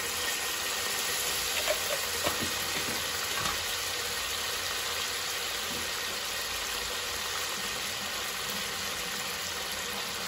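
Prawns sizzling steadily in hot oil in a pot, just dusted with turmeric powder, with a few sharp pops about two to three and a half seconds in.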